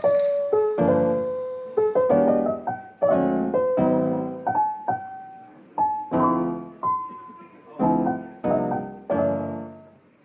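Background piano music: a gentle tune of struck chords about once a second, each dying away, with single melody notes in between; the last chord fades out near the end.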